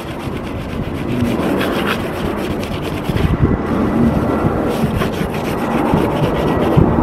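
A wet wipe rubbed hard back and forth over an aluminium roof panel, scrubbing off residual silicone sealant.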